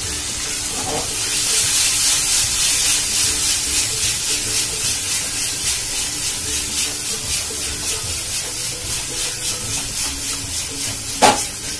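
Onions and capsicum in Schezwan sauce sizzling in a nonstick frying pan over a gas flame while being stirred and tossed with a wooden spatula; the hiss pulses in a quick, even rhythm. A single sharp knock near the end.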